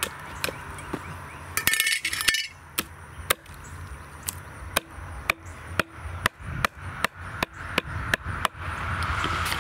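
Hatchet chopping repeatedly into a paddlefish head on a wooden cutting board: sharp knocks, about two to three a second, that stop near the end.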